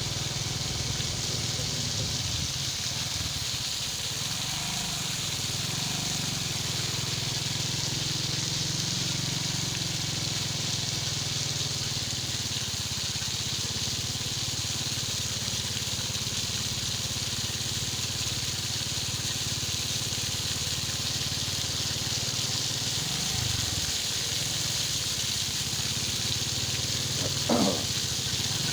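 Steady hiss of water spraying onto a gravel road bed from a water tanker, over the steady running of the vehicle's engine. A short rising sound stands out near the end.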